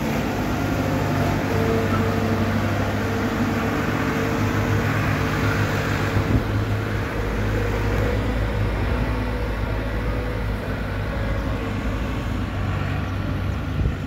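Diesel engine of a Caterpillar wheel loader with a log grapple running steadily as the machine drives past with a load of timber posts and moves away. A deeper low rumble sets in about halfway through.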